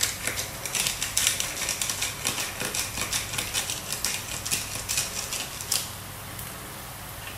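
Hand-twisted black pepper grinder crunching peppercorns in a rapid run of dry clicks, stopping about six seconds in.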